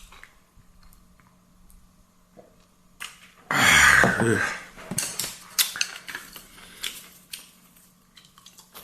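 A loud, roughly one-second vocal exhale about three and a half seconds in, the 'ahh' after a swallow of strong liquor. After it come light, scattered clicks and clinks of chopsticks and tableware on dishes.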